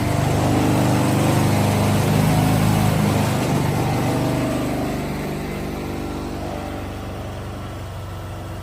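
Air-cooled 23 hp gas engine of a mini skid steer running steadily, then getting quieter from about five seconds in.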